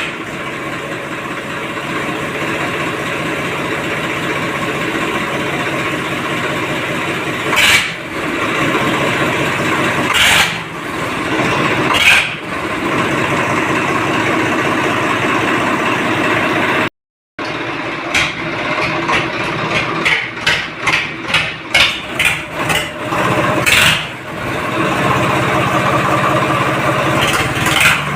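Swaraj 855 tractor's four-cylinder diesel engine running through a newly fitted silencer: steady idle with a few short revs, then, after a short break, a run of quick throttle blips.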